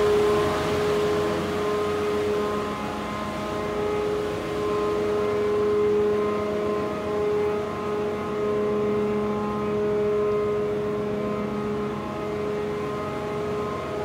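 Steady drone of a ship's running machinery below decks, a constant hum carrying several held tones, the loudest a steady mid-pitched whine.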